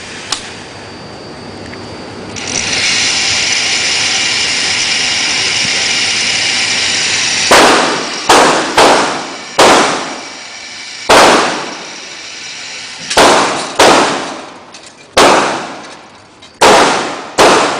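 Firearm shots, about ten of them fired at an uneven pace from roughly seven seconds in, each sharp crack followed by a short ringing decay. They come after a steady hiss that lasts about five seconds.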